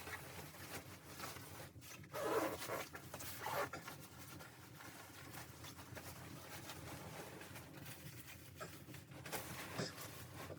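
Irregular rustling and scraping with small clicks, like fabric or gear being handled, with louder scrapes about two and three and a half seconds in.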